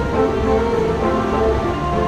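Background music of several held notes sounding together.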